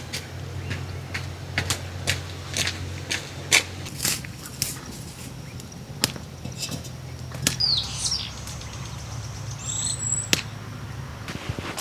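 Scattered sharp clicks and light knocks over a steady low hum that stops shortly before the end. A couple of short bird chirps, one a falling whistle, come about two-thirds of the way through.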